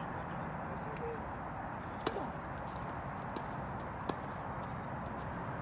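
Tennis ball struck with a racket during a rally: two sharp pops about two seconds apart, with a few fainter ticks, over steady background noise.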